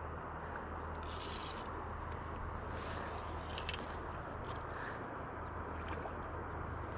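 Steady outdoor background noise over a constant low hum, with a few brief scraping rustles, about a second in and again near the middle.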